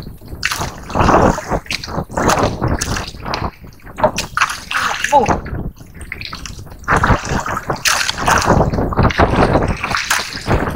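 Sea water sloshing and splashing against the hull of a small boat in irregular surges.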